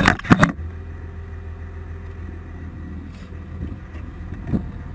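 A burst of rattling knocks in the first half second, then a steady low drone of aircraft engines heard from inside the C-130J's hold.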